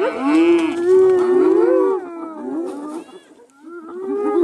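Several animals calling at once: overlapping, wavering, pitched calls that rise and fall over each other. They thin out and dip briefly a little after the middle, then build up again near the end.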